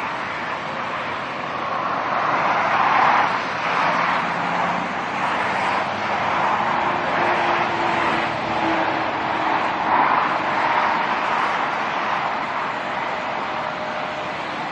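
Steady rushing of motorway traffic going past, swelling and fading as vehicles pass, with a faint engine drone underneath.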